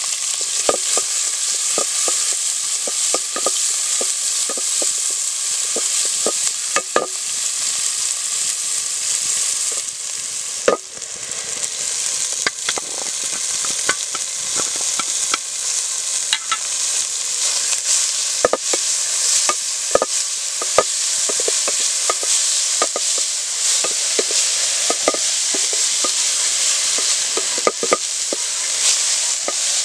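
Moringa flower fry sizzling in hot oil in a pan while it is stirred, with a steady sizzle and many sharp scrapes and knocks of the stirring utensil against the pan.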